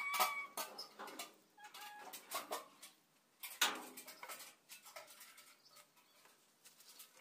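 Rope-and-bucket water drawing at a concrete-ring well: scattered knocks, scrapes and splashes, the loudest about three and a half seconds in. A brief high call rises and holds at the very start.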